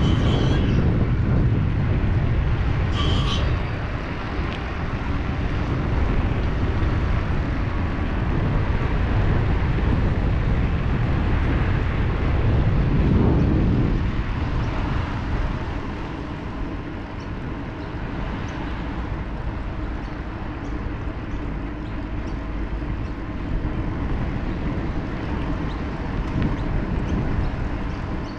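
Wind rumbling on an action camera's microphone during a bike ride, swelling about halfway through. Two short high-pitched sounds in the first few seconds.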